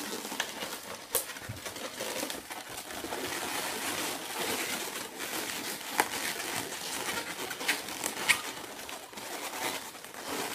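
Latex twisting balloons squeaking and rubbing against each other as they are handled, twisted and fitted together, with a few sharper squeaks along the way.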